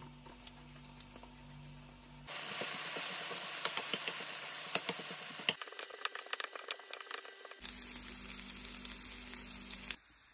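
Scallion oil and chopped kkakdugi (cubed radish kimchi) sizzling and crackling in a frying pan. The sizzling starts about two seconds in, shifts abruptly twice, and stops near the end.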